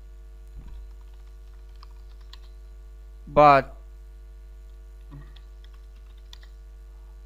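Faint typing on a computer keyboard over a steady electrical hum, broken by one short vocal sound about three and a half seconds in.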